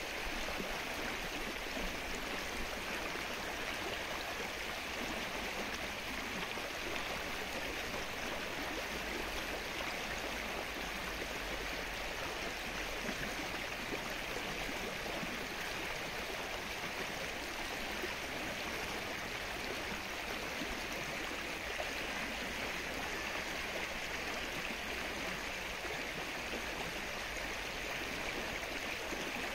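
Steady rain falling on the open water of a lake, an even hiss of countless drops.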